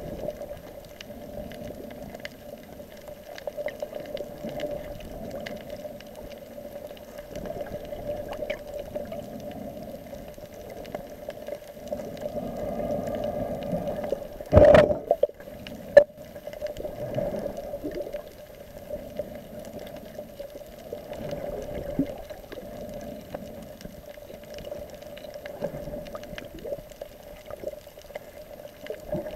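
Underwater sound picked up through a camera's waterproof housing: muffled sloshing and gurgling water over a steady hum, with one loud knock about halfway through and a sharp click just after it.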